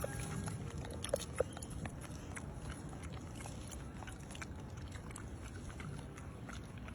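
A monkey gives two brief squeaks about a second in, over scattered small clicks and a steady low rumble.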